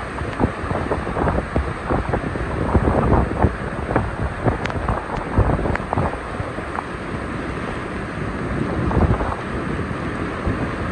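Hurricane-force eyewall wind gusting and buffeting the microphone, with a rumble of wind noise, sharp crackles and the hiss of torrential rain. The gusts swell about three seconds in and again near the end.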